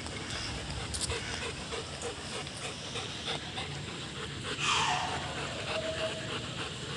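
German shepherds panting steadily while locked in a mating tie. About two-thirds of the way through, one dog gives a drawn-out whine that falls in pitch and then holds.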